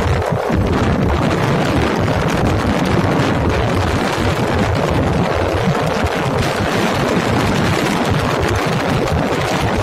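Steady rumble of a moving vehicle: engine and road noise mixed with rushing wind, running without a break.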